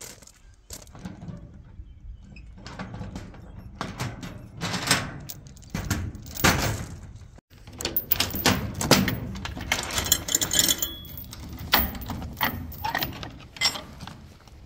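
A steel chain and padlock rattling and clinking as they are unlocked and pulled loose from a metal building's door, with irregular clanks against the sheet-metal siding and a burst of jangling about two-thirds of the way through.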